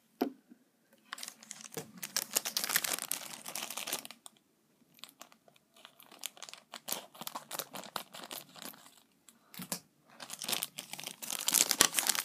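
Clear plastic packaging crinkling and rustling as hands unwrap a figure's parts, in two spells: one from about a second in lasting a few seconds, and a busier one from about ten seconds in, with a few light clicks in between.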